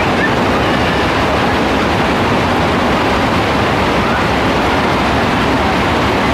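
Heavy rain pouring down, a loud, steady, dense hiss with no let-up.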